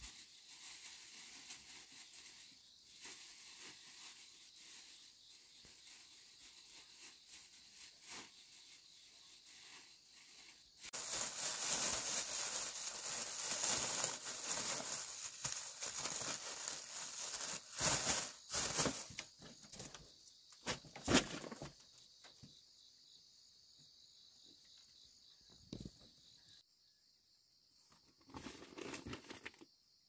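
Rustling and crinkling, loudest for about nine seconds from about a third of the way in, with a few sharp clicks, over a steady high insect drone.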